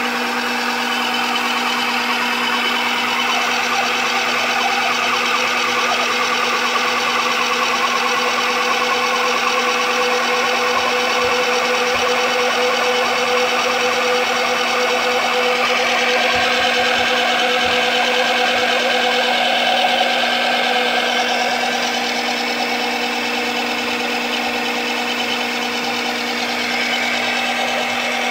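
Governor test rig running steadily with a Woodward EG3P actuator mounted: a loud, even machine hum with a strong low tone and a whine above it. The higher part of the sound shifts about sixteen seconds in and again around twenty-one seconds.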